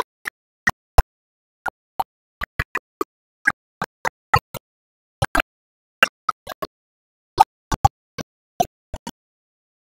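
Broken-up audio: short clicks and blips of sound, about two or three a second, with dead silence between them, as the recording of a talk into a handheld microphone drops out.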